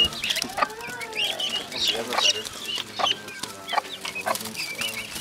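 Chickens clucking and calling, with many short high-pitched calls, as a bird is grabbed inside a woven basket; sharp knocks from the wicker being handled come several times.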